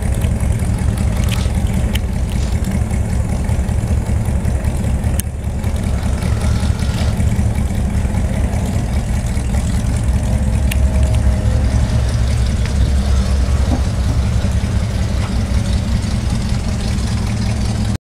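Classic car engines idling close by with a steady low rumble.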